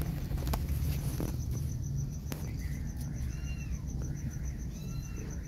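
Newborn kittens giving short, high, faint mews, about three seconds in and again near the end, over a steady low rumble and a fast, even high ticking.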